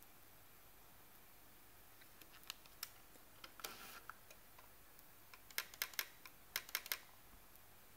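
Canon PowerShot SX50 camera, switched off, rattling with faint sharp clicks as it is moved: a few clicks about two and a half seconds in, then a quick cluster of them a couple of seconds later. A Canon service calls this rattle normal for the camera when it is off, made by its linear-motor lens.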